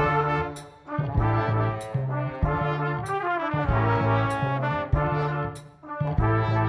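Brass ensemble led by trumpets playing an arrangement with electric bass and drum kit: a bass line under the brass chords, drum hits and a cymbal stroke about every second and a quarter.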